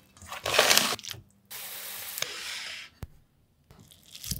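A hand stirring flour into a pancake batter of corn, tuna and vegetables in a stainless steel bowl, giving a short rubbing scrape. A steady hiss follows for about a second and a half, then a single sharp click.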